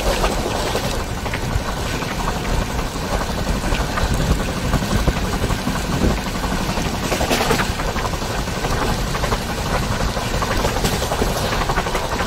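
Passenger coach of the 12716 Sachkhand Superfast Express running at speed, heard from the open doorway: a steady rumble and rattle of wheels on the rails with rushing air, and a couple of brief sharper clatters about a second in and about seven seconds in.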